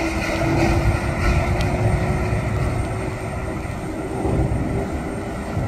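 Boeing 787 jet engines running with a steady whine over a low rumble, the whine fading somewhat in the second half.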